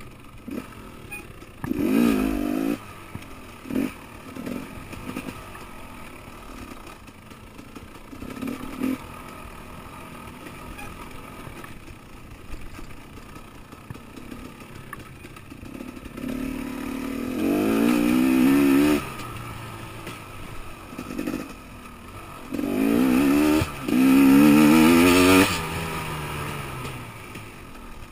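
Enduro dirt bike engine heard from on board while riding a trail, running at part throttle with repeated bursts of revving as the throttle is opened, the pitch rising and falling. The longest, loudest bursts come about two-thirds of the way in and near the end.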